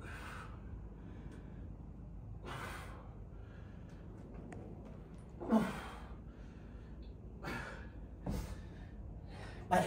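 A woman's forceful breathing during dumbbell deadlift reps: short, sharp exhales and gasps every two seconds or so, in time with the lifts, the loudest about halfway through with a brief voiced edge.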